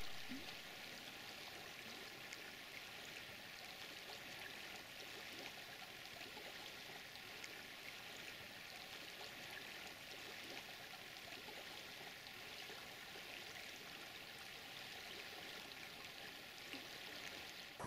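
Faint, steady trickle of water from a bull moose drinking at a lake's edge, its muzzle in the water.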